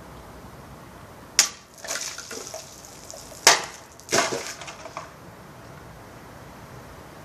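A katana cutting through a water-filled plastic jug twice, about two seconds apart. Each cut is a sharp crack, followed by water splashing and spattering onto the ground.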